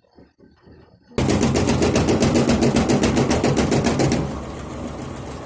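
Electrolux washing machine starting up with a loud, fast rattling knock, about ten knocks a second, beginning suddenly about a second in and easing to a quieter steady run about four seconds in. The knocking is an internal hose banging against the machine, which the owner puts down to its retaining clip having come off.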